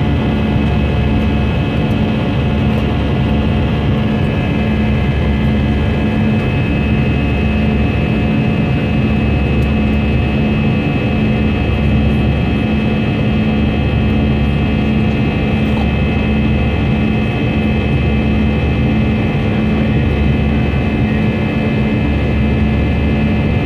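Cabin noise of an airliner in its climb-out: the turbofan jet engines run steadily, with several steady whining tones over a low rumble that swells and fades every couple of seconds.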